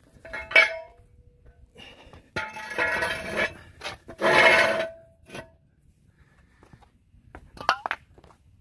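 Steel jack-stand and tool noises on a concrete floor: a sharp ringing clank, then two longer scraping rasps with a short metallic ring in the second, and another clank near the end.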